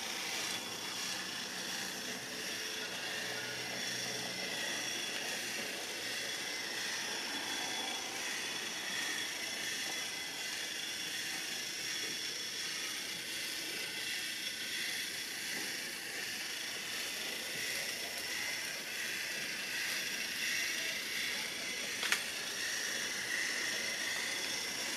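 Steady hiss of room noise, with one sharp click about 22 seconds in from a control on a Canon EOS R camera body being pressed.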